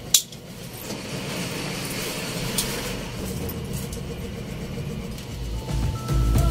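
A backpack being lifted and slung onto a shoulder: one sharp click near the start, then rustling of fabric and straps over a low, steady rumble that grows louder near the end.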